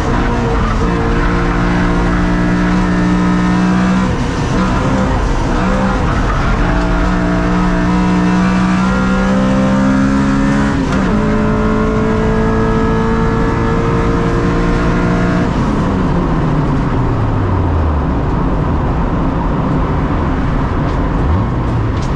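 Honda Civic VTi's 1.6-litre VTEC four-cylinder engine heard from inside the caged, stripped race cabin, revving hard and climbing through several quick upshifts. Past halfway the revs fall away in a long steady slide, with a short rise again near the end.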